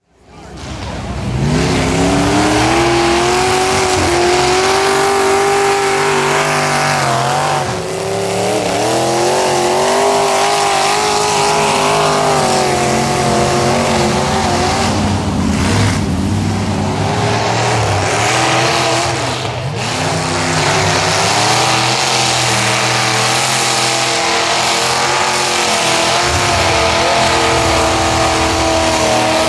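Lifted GMC Sonoma mud-bog truck's engine revving hard under load, its pitch rising and falling again and again as the big tires churn and sling mud. The sound fades in over the first couple of seconds.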